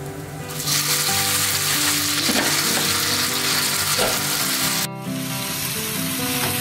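Glass noodles added to chikuwa frying in sesame oil in a frying pan: loud sizzling that jumps up about a second in as they hit the oil, while they are stirred. The sizzle drops out briefly near the end, then carries on. Soft background music underneath.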